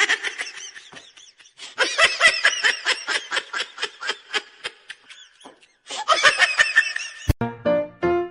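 A person laughing hard in quick, high-pitched bursts, in three bouts. The laughter cuts off with a click about seven seconds in.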